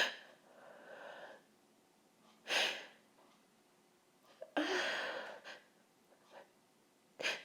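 A woman's sharp sniffs and hard breaths between sneezes, with a short vocal catch at the start of one longer breath about halfway through: her nose is irritated by sniffed pepper and she is trying to hold back the next sneeze.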